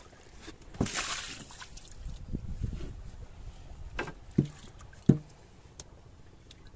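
Water splashing and sloshing about a second in, then three short hollow knocks of bamboo against the wooden boat, the last and loudest about five seconds in.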